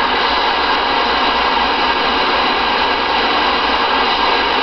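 Steady hiss of receiver static from a Connex Saturn CB radio's speaker, with the Thunderbolt 305 amplifier's receive preamp switched in.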